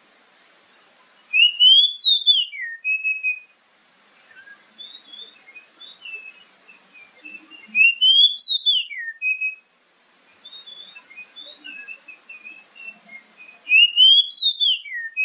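Oriental magpie-robin singing: a loud whistled phrase that rises and then drops sharply, given three times about six seconds apart, with softer twittering notes between.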